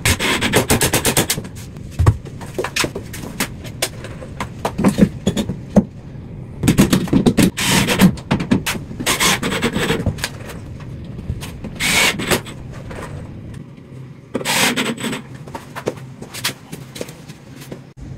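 Cordless power driver running in several short bursts of rapid rattling clicks, driving screws to fasten drywall overhead.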